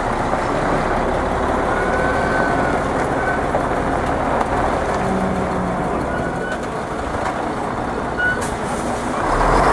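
Heavy four-axle dump truck's diesel engine running steadily as the truck pulls out and turns slowly onto the road, with a few faint brief whistles over the rumble.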